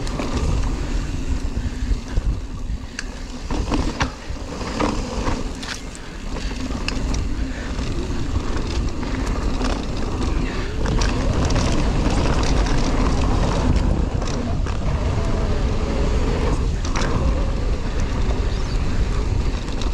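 Wind rushing over the microphone of a handlebar-mounted camera on a moving mountain bike, with tyre noise and scattered clicks and rattles.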